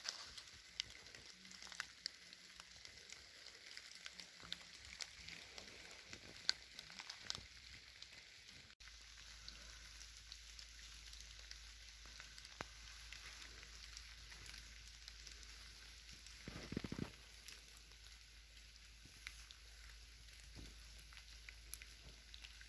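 Faint wet-forest ambience: a soft hiss with scattered, irregular crackles and ticks, as of water dripping and settling on damp leaf litter. About a third of the way in the sound cuts and a steady low rumble joins underneath.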